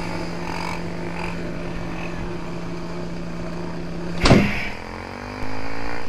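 Motorcycle engine idling steadily. About four seconds in there is a loud rush as another motorcycle passes close by, and then the engine's pitch swings as the bike pulls away.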